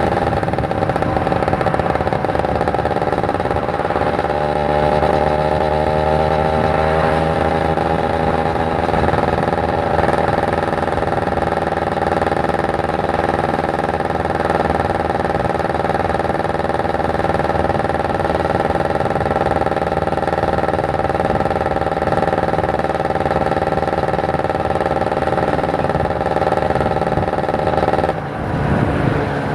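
Kawasaki Ninja 150 RR's 150 cc single-cylinder two-stroke engine running hard under way. Its pitch climbs over the first several seconds and then holds steady. Just over a second before the end it drops sharply and then climbs again.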